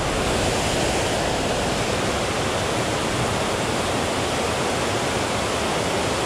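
Water rushing over a spillway, a steady, even rush with no breaks.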